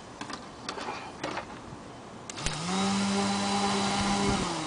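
Small electric motor from a Lectra/San boat macerator, driving a Kasco de-icer propeller, spinning up with a quick rising whine, running at a steady pitch for about two seconds, then winding down. A few light clicks come before it starts.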